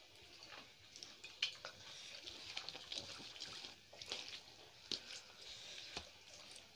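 Hands mixing rice with curry gravy on plates while eating, heard faintly as soft, wet squishing with scattered small clicks.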